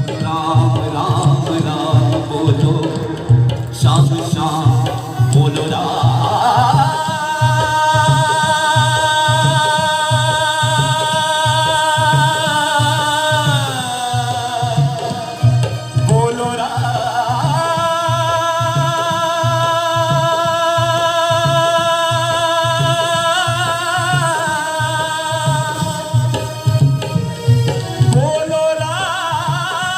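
Instrumental interlude of a Hindi devotional song (bhajan): a hand-drum rhythm keeps a steady quick beat, and a held, slightly wavering melody line enters about seven seconds in, slides down and breaks off around the middle, then returns twice.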